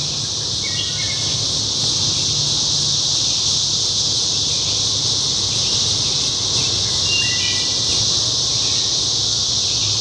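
Dense chorus of Brood XXIII periodical cicadas (Magicicada), the 13-year Lower Mississippi brood, massed males singing in one steady, unbroken high-pitched drone.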